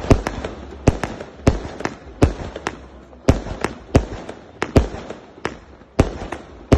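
Multi-shot firework battery (cake) firing shot after shot into the sky: a fast, uneven run of sharp bangs, about two to three a second, with crackling between them.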